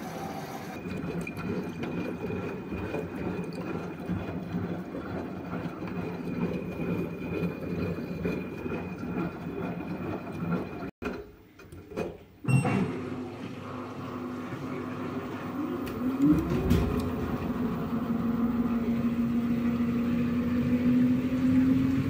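Front-loading washing machine: the drum tumbles with an uneven low rumble, then after a brief dip about halfway through the motor starts a spin, its steady whine climbing slowly in pitch as the drum speeds up.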